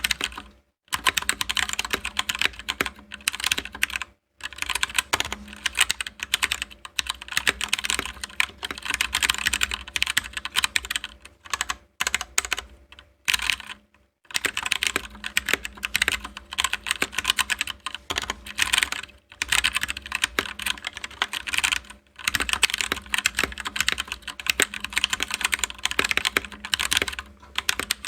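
Typing test on an Anne Pro 2 mechanical keyboard with Gateron Brown tactile switches: fast runs of key clacks, broken by a few short pauses.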